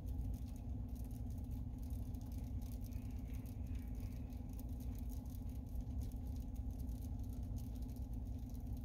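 Steady low hum inside a pickup truck's cabin, with faint irregular ticking and rustling over it.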